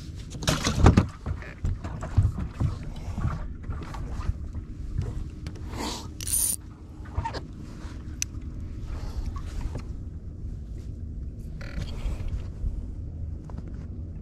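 Knocks and bumps of handling on a bass boat's carpeted fiberglass deck, heaviest about a second in, with another clatter about six seconds in. Then a steady low hum with a few light clicks.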